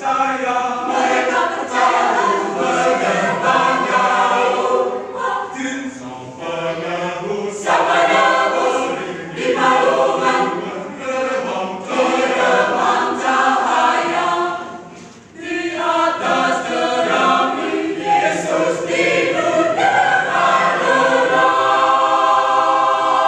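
Mixed-voice parish choir of men and women singing in harmony, with no instruments heard. The singers pause briefly for breath partway through, then finish on a long held chord at the end.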